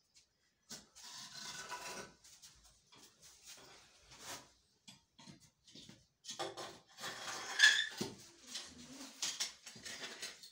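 A snake-catcher's long hook pole scraping and knocking against bricks and the floor, with clinks of metal pots, as it probes behind a brick stack for a cobra. The scrapes and knocks come in irregular clusters, the sharpest knock about two-thirds of the way through.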